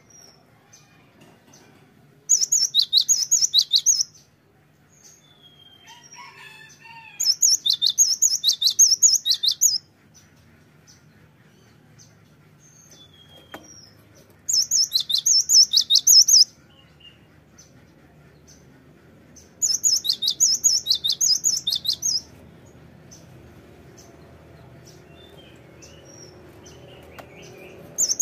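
Cinereous tit singing in four bouts of about two seconds each, every bout a fast run of the same ringing high note repeated over and over, with quiet pauses in between.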